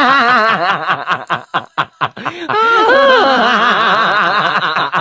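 Loud laughter: a run of quick 'ha-ha' pulses, with the pitch swooping up and down in long arcs at the start and again near the middle.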